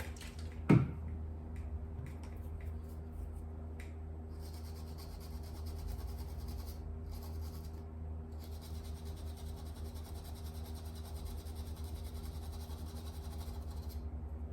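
Light scratching of a steel wire brush scrubbing a car key's circuit board, cleaning off the damaged traces and pads, over a steady low hum. A single knock comes about a second in.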